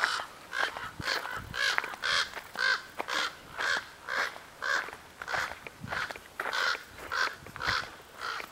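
A crow cawing over and over, about two caws a second, with footsteps crunching on a wood-chip path.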